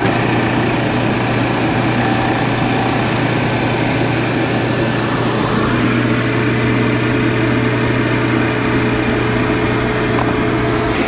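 Refrigerant recovery machine running steadily, its motor giving a constant hum with a faint whine, pumping R22 refrigerant out of an air-conditioning unit into a recovery tank.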